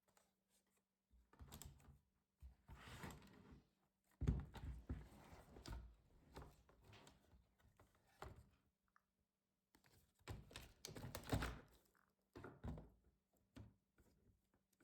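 Plastic and metal laptop parts being handled during disassembly: scattered knocks, clicks and scraping in several bursts, the loudest knocks about four and eleven seconds in.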